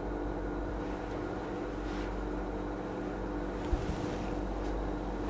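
Steady low background hum, room tone with a few faint steady tones in it, and one soft click a little after halfway.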